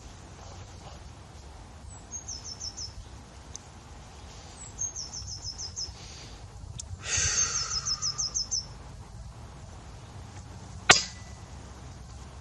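A pre-charged pneumatic air rifle fires once near the end, a single sharp crack with a short tail. Throughout, a small songbird repeats a short phrase several times: a downward swoop followed by a quick run of high notes.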